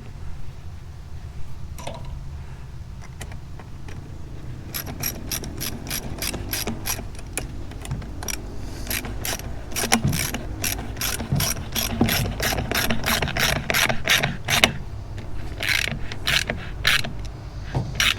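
A socket ratchet clicking in quick runs, starting about five seconds in and going on for about ten seconds, with a few more clicks near the end. It is tightening a hose clamp on the turbo intake.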